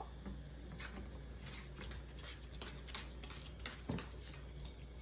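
Battery-powered toy train running along wooden track, with light irregular clicks and clatters as its wheels cross the joints, one sharper knock near the end, over a faint steady low hum.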